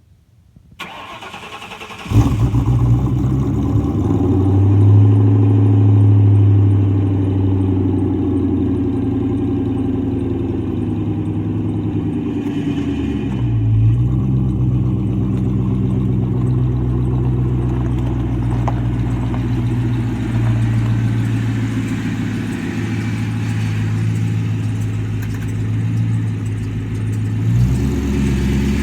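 1997 Ford Mustang GT's 4.6-litre V8 cranking briefly and catching about two seconds in, then running at a raised idle that eases down into a steady idle, with a short dip in revs about halfway through.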